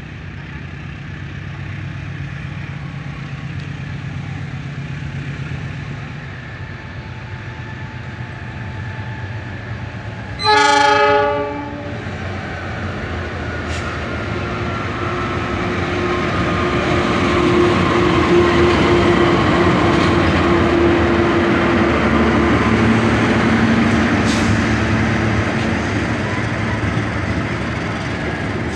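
CC 201 diesel-electric locomotive approaching and sounding its horn in one loud blast of about a second, a third of the way in. It then passes hauling passenger coaches, the engine and the wheels clicking over the rail joints growing louder toward the end.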